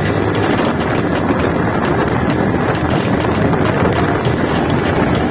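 Wind buffeting a phone's microphone on a moving motorcycle, with the motorcycle's engine and road noise underneath: a loud, steady rush.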